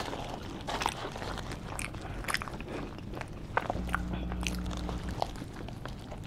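Close-up eating sounds from a foil-wrapped cheesesteak: crinkling aluminium foil, a bite into the roll and wet chewing, with many small crackly clicks. A low hum is held for about a second a little after the middle.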